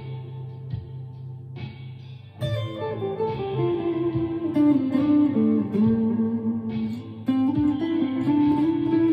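Electric guitar, a Chapman ML3 Pro Traditional with Seymour Duncan Hot Tele pickups, played in a slow ambient style. It is quiet for the first couple of seconds, then louder from about two and a half seconds in, with long held notes that slide from pitch to pitch.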